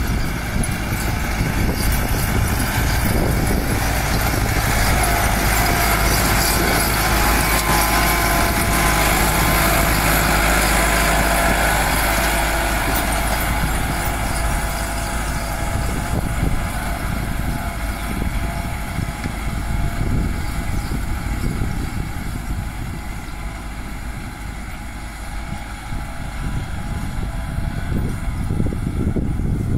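Massey Ferguson tractor's diesel engine running steadily under load while pulling a disc harrow through the soil. The sound is loudest in the first half, fades as the tractor moves off, and grows again near the end.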